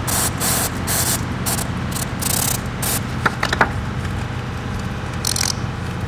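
Aerosol brake parts cleaner hissing from the can in several short spray bursts in the first half, then one more near the end, washing grime out of a wiring connector.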